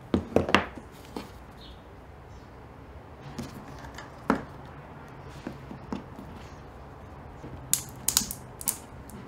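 3D-printed plastic headset-press handle parts clicking and knocking as a threaded end knob is twisted into the handle body, with a few clicks about a second in and a tight cluster of sharper clicks near the end.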